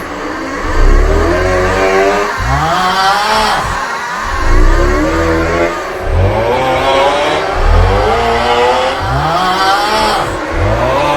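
The 'Aughhhh' snoring meme sound on a loop: a loud snore drawn out into a long, wavering groan, repeating about every three and a half seconds with a heavy low rumble under each.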